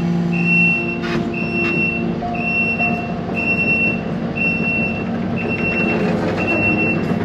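A vehicle's backup alarm beeping steadily, about one beep a second, over the hum of an engine running.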